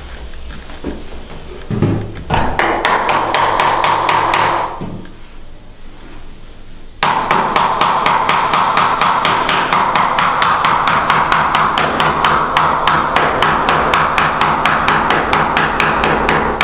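Hammer striking nails into wooden door trim in quick, even blows. There is a short run of blows a couple of seconds in, a pause, then a longer unbroken run of blows.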